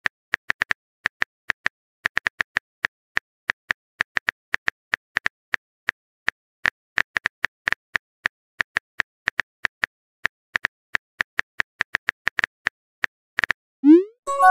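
Phone keyboard typing sound effect: quick, irregular taps with short pauses between, as a text message is typed out. Near the end a short sound rising in pitch marks the message going through.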